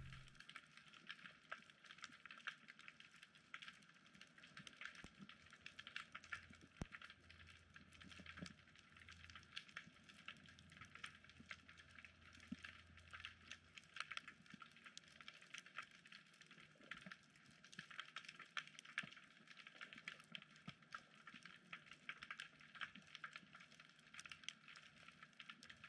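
Faint underwater crackling of snapping shrimp: a dense, unbroken fizz of tiny clicks. A faint low hum sits underneath for a few seconds in the first half.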